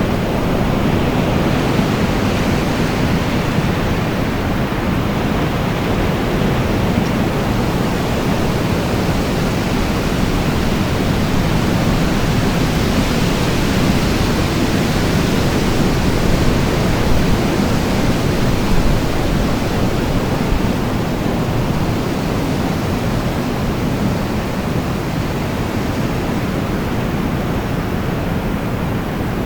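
Rainstorm with wind blowing: a steady, loud rush of rain and wind with slow gentle swells.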